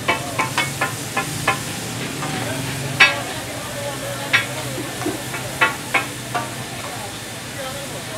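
Chopped chicken and chutney sauce sizzling on a large flat tawa griddle, with a dozen or so sharp, irregular clinks of a metal spatula striking the griddle as the food is stirred.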